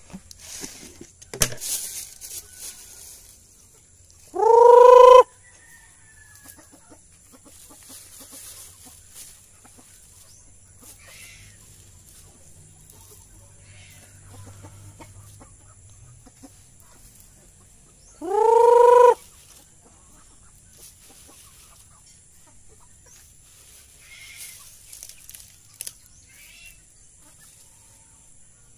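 Native chickens in a free-range flock: a bird gives two loud, pitched calls of about a second each, about 4 s and 18 s in, with faint scattered clucks and scratching between them. A few sharp knocks come in the first couple of seconds.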